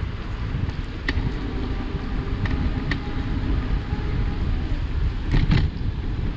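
Short creaks from a Cowboy C4 e-bike's crank or bottom bracket while riding, over a steady rumble of wind on the microphone: three faint ones in the first three seconds, then a louder double creak about five seconds in. The creak points to a fault in the crank or bottom bracket.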